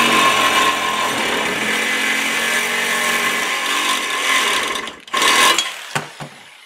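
Reciprocating saw cutting through steel angle stock clamped in a bench vise: the motor runs with the blade rasping against the metal for about five seconds, stops, runs again for half a second, then a couple of light clanks near the end.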